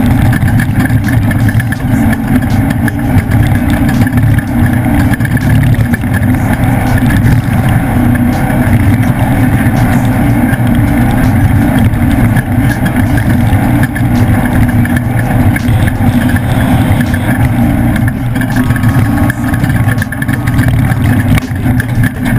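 Leaf-sprung Ford off-road race truck running a race lap, its engine loud and steady without a let-up.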